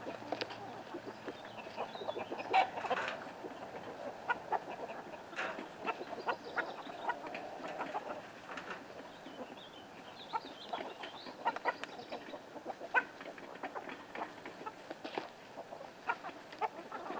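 Chickens clucking, with scattered scrapes and rustles as handfuls of wood shavings are scooped out of a coop and dropped into a wheelbarrow.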